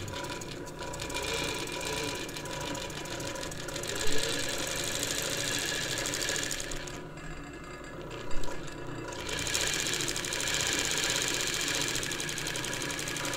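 Merrow A-3DW-3 industrial overlock machine (late 1940s) running at a slow speed, overlocking and trimming four layers of oilcloth as its knife cuts the edge. The running eases off briefly a little past halfway, and two short louder knocks come through, once about four seconds in and again about eight seconds in.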